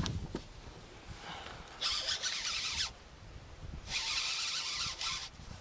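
Fishing reel cranked in stop-and-go spurts while retrieving a lure: two whirs of about a second each, with a pause between them.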